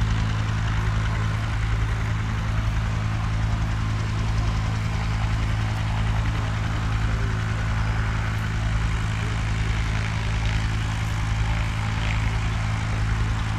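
Bell UH-1D helicopter running on the ground, its two-blade main rotor turning with a fast, even low beat over a steady turbine hum.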